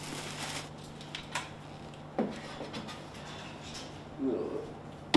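Black plastic bin bag rustling and scraping as soiled dog bedding is handled and bagged, with a few light knocks.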